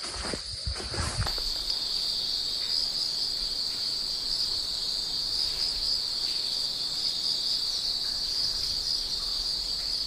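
Steady, unbroken chorus of insects chirring in a high band, with a few footsteps in the first second or so.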